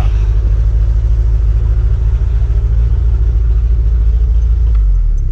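MerCruiser 130 hp sterndrive boat engine running steadily as a low rumble while it draws pink antifreeze through its cooling system for winter lay-up.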